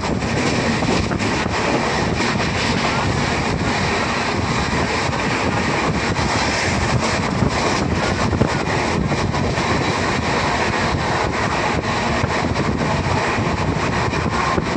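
Steady rush of wind buffeting the microphone at an open window, over the running noise of a moving vehicle.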